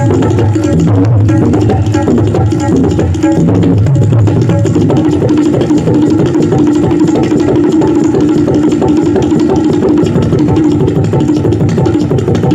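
Tabla played in a fast, continuous stream of strokes imitating the rhythmic clatter of a train's coaches running over the rails. A ringing treble-drum tone holds through the middle, with deep bass-drum strokes near the start and again at the end.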